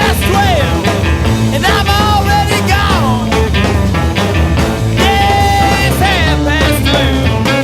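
Rock music with a steady bass and guitar, and a melody line that slides up and down in pitch.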